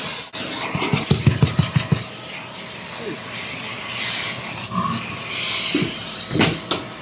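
Vacuum running with a steady hiss of air through its hose nozzle, sucking up debris. About a second in there is a quick run of rattling knocks as bits clatter up the hose or the nozzle scrapes the surface.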